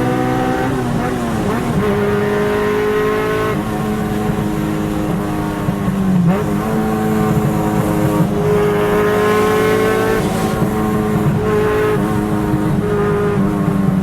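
Car engine running hard, its note holding steady and then changing pitch every two to three seconds as it revs up and down.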